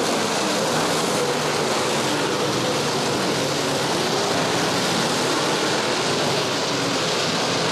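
A pack of IMCA Modified dirt-track race cars running at speed, their V8 engines blending into one steady wash of engine noise with faint wavering pitches as cars pass.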